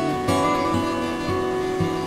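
Background music: acoustic guitar playing a gentle run of plucked notes.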